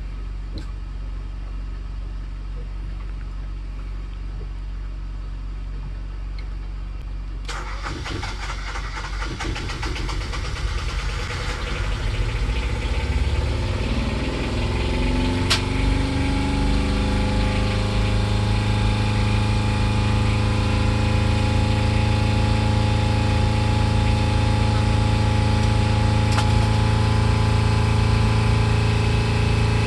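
Fischer Panda two-cylinder marine diesel generator being started: after several seconds of a steady low hum it cranks about seven seconds in, catches, climbs in speed over several seconds and settles into steady running. It starts readily and keeps running after its belt adjustment.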